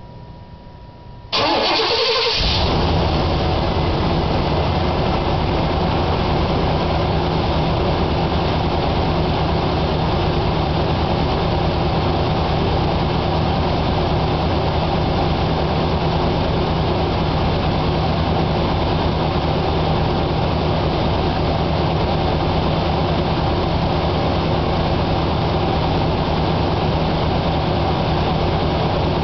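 Chevrolet C/K 1500 pickup engine cranked by the starter about a second in, catching within a second and settling into a steady idle. This is its first start after a new water pump, radiator hoses, fan belt and fresh oil, and it fires on the first try.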